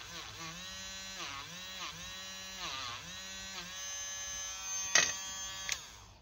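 Small handheld rotary tool running with a steady whine, its pitch dipping four times as the spinning disc bit is pressed against a small metal lighter part. Two sharp clicks come about five seconds in, and the motor stops just before the end.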